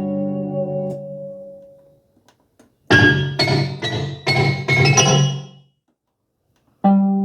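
Korg M1 synthesizer presets being played: a held chord that fades out over the first two seconds, then several struck keyboard chords with a sharp, bell-like attack for a few seconds. After a short silence a new patch starts near the end.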